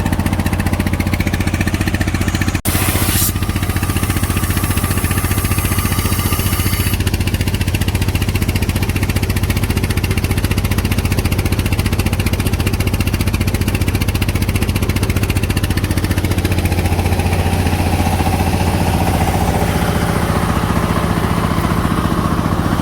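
An engine running steadily. A sharp click comes just under three seconds in, followed by about four seconds of high hissing, like escaping air.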